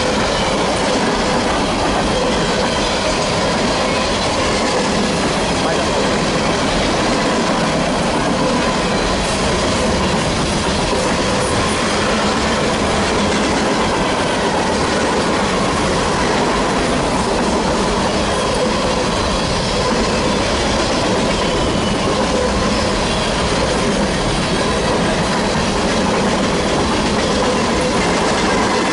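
Freight train of empty coal gondolas rolling past close by: a steady rolling noise of steel wheels on rail, with faint steady squealing tones over it.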